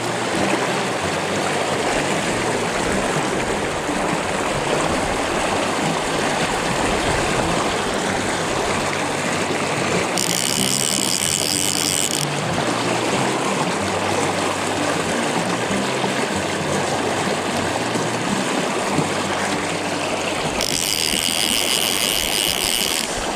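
Fast river current rushing steadily around wading legs, with a click-and-pawl fly reel ratcheting twice for about two seconds each, about ten seconds in and near the end, as line is reeled in on a hooked fish.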